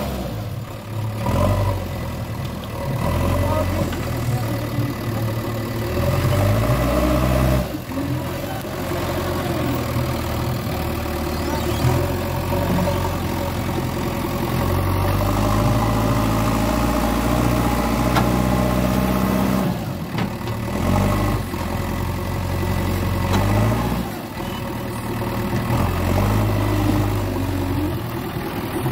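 JCB backhoe loader's diesel engine running under load, its pitch rising and falling as the loader bucket pushes and lifts soil. The sound breaks off briefly twice.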